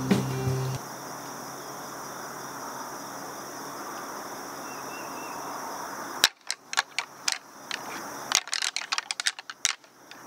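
Music fades out in the first second, leaving a steady outdoor hiss; about six seconds in, a pair of synthetic rattling antlers is clashed and ground together in quick, irregular clacks, imitating two whitetail bucks fighting to draw in a buck.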